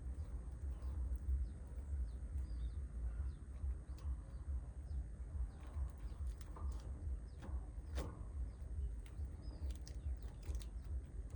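Outdoor ambience: a steady low rumble, like wind on the microphone, with many faint short bird chirps that drop in pitch and a few scattered clicks, the sharpest about eight seconds in.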